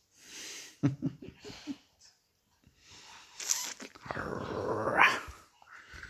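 An English bull terrier and a Labrador puppy play-fighting: a string of short, noisy breaths and brief grunts, then a longer breath near the end that rises in pitch.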